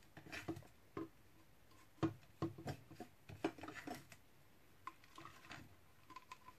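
Soft, scattered taps and scrapes of fingers gathering grated lemongrass on a wooden cutting board and dropping it into a plastic blender cup.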